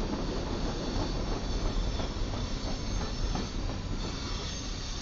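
Freight train of tank cars and covered hoppers rolling steadily past at track speed: a continuous rumble of steel wheels on rail, with faint wheel clicks and a faint high wheel squeal.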